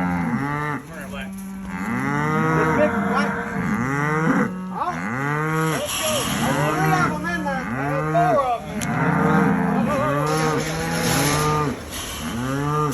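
A herd of cattle mooing, with several animals calling over one another in long, arching moos, one after another without a break.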